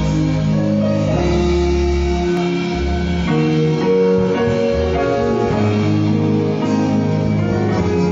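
Live instrumental church music: held chords over a deep bass line, playing steadily as an introduction.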